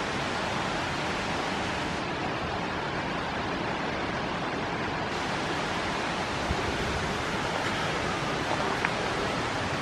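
Steady rush of flowing water from a mountain creek, an even hiss that holds level throughout.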